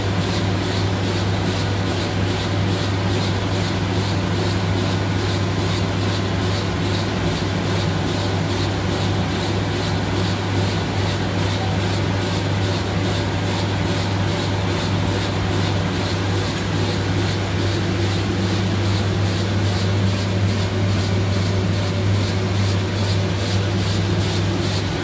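Heidelberg Speedmaster SM 74 four-colour sheetfed offset press running at production speed: a loud, steady mechanical hum with a fast regular beat, about three a second.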